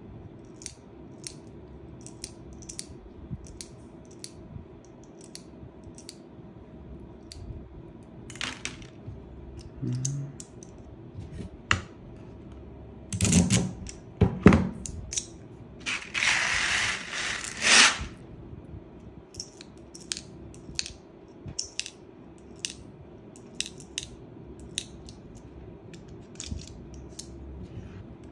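Airsoft BBs clicking one by one into a gas blowback AK magazine as they are pushed in from a tube speed loader. About halfway through there is a louder clatter, then a rattling hiss lasting about two seconds.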